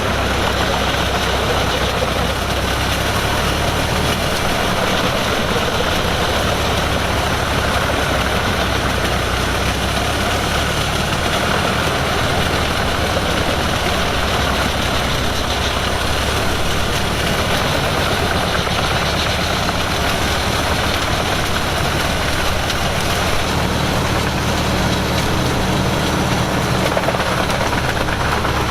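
Heavy diesel machinery running steadily with dense mechanical noise, at an even level with no pauses.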